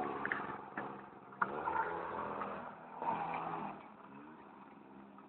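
Small 50cc quad bike engine running under throttle. It revs up about a second and a half in and again about three seconds in, then drops back quieter.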